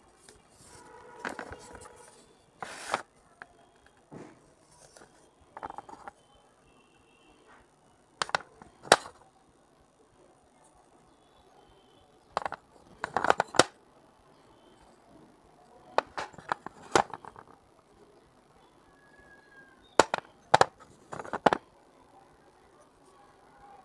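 Pieces of small unglazed fired-clay cups being bitten and crunched: sharp cracks in clusters every few seconds, with short gaps between.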